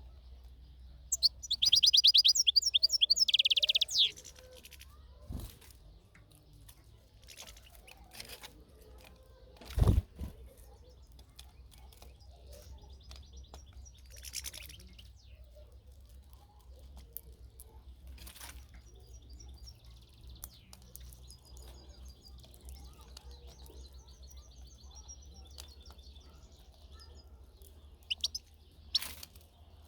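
European goldfinch twittering: a loud, rapid run of high chirps for about three seconds near the start, then scattered fainter calls and two more sharp chirps near the end. A single low thump about ten seconds in.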